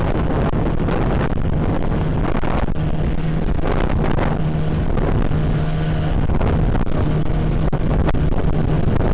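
Speedboat engine running steadily at speed, a constant hum, with wind on the microphone.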